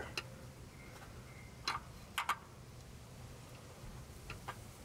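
A handful of faint, sharp clicks and light taps as a spin-on oil filter is turned by hand against its threaded mount, its thread not yet aligned and catching.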